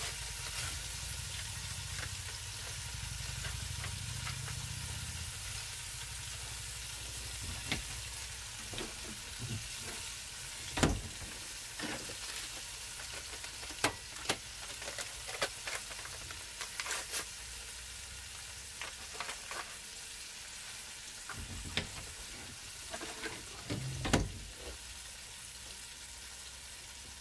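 A spoon stirring and scraping dip sauce in a bowl, with scattered clicks and a few sharper knocks of the spoon against the bowl, over a steady hiss.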